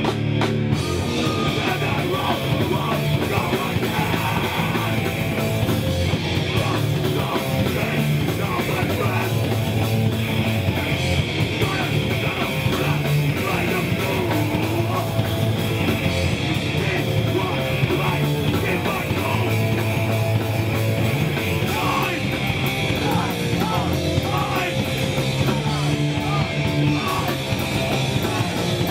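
Hardcore punk band playing live: distorted electric guitars, bass and drums, with shouted vocals over them.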